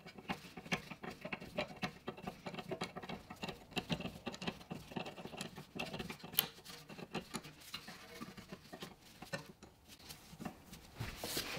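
Small, irregular metallic clicks and scrapes of an 11 mm ring spanner being fitted and worked on a fitting of a rear brake caliper.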